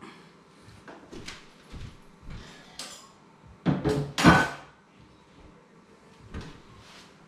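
Camp oven and its lid being handled to check the silverside: a series of knocks and clatters, the loudest a pair of clanks about halfway through with a brief metallic ring.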